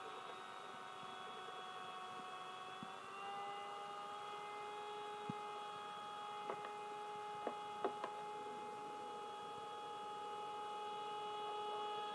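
Small brushed electric motor of an RC model hovercraft whining steadily as it drives the fan, its pitch stepping up slightly about three seconds in. A few faint clicks come through about halfway.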